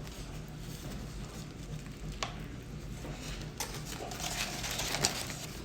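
A person chewing a bite of burger: faint mouth and chewing sounds with a few short, soft clicks, over a steady low room hum.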